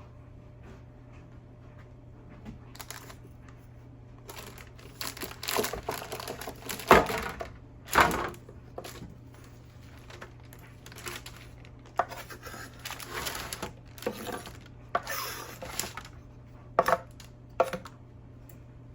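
Kitchen clatter of things being handled on a counter: irregular knocks and rustling, with a few sharp louder knocks in the middle, over a steady low hum.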